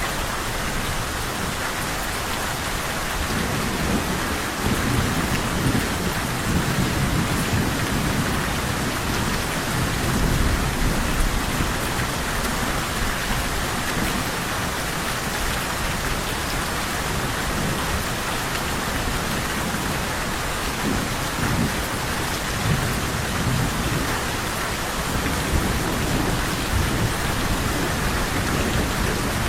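Steady rain falling, with low rumbles of thunder rising and fading twice.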